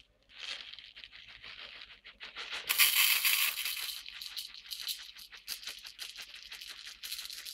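Dry Carolina rice grains pouring from a cardboard box into a plastic cup: a grainy, rattling hiss of many small grains. It starts a moment in, is loudest about three seconds in, and then runs on more thinly.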